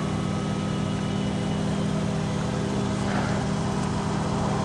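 A vehicle engine idling, a steady unchanging hum.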